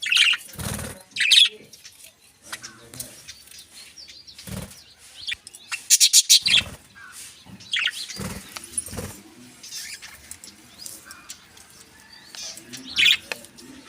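Pet budgerigars and finches in a colony chirping in short, scattered bursts, with several brief thumps and flutters among them.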